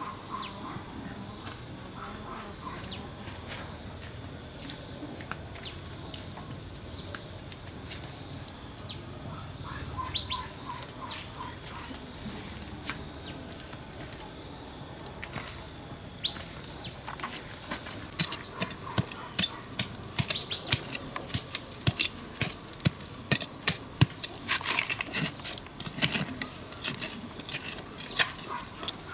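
A steady high insect drone with scattered bird chirps; about two-thirds of the way in it stops and gives way to rapid, irregular knocks and scrapes of digging into dry soil.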